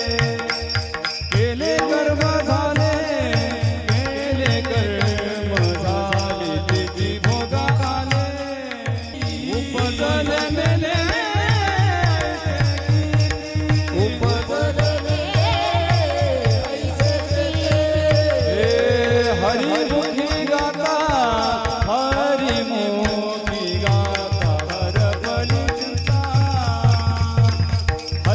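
A man singing a Marathi devotional abhang in long, sliding held notes without clear words, over a steady hand-drum beat.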